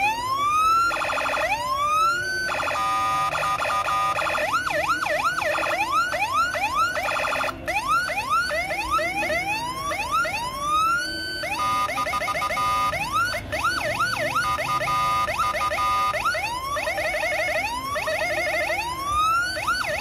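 Homemade Senken electronic siren module being switched through its tones: slow rising wails, quick up-and-down yelps, and a rapid two-tone hi-lo alternation, the pattern changing every second or few.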